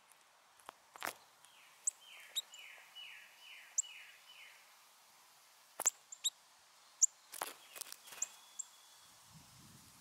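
Backyard birds calling: a run of about six quick downslurred whistled notes, starting about a second and a half in, among scattered short high chirps. A few sharp clicks stand out, the loudest about six and seven seconds in.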